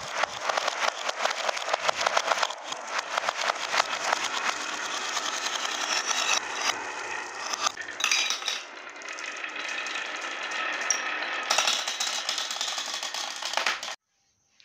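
Many glass marbles rolling in a stream down the wavy groove of a wooden HABA slope track, clicking against one another and rattling on the wood in a dense clatter that cuts off abruptly near the end.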